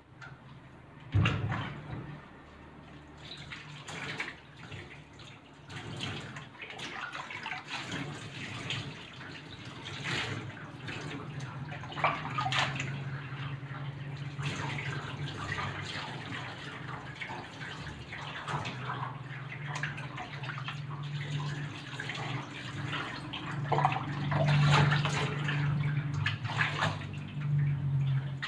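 Water running and splashing as a dog is bathed, with irregular splashes throughout. A sharp knock comes about a second in, and a low steady hum joins about halfway through and grows louder near the end.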